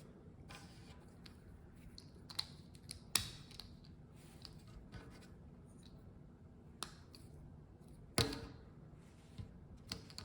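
Plastic Lego pieces being handled and pressed together: scattered light clicks, with two sharper snaps about three seconds in and again about eight seconds in.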